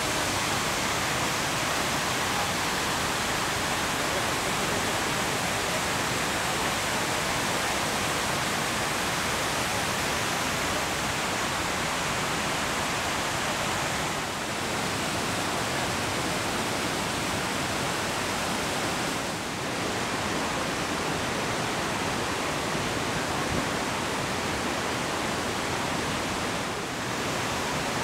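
The Rhine Falls: a steady rushing of whitewater pouring over the falls, an even hiss and rumble across all pitches, briefly dipping three times.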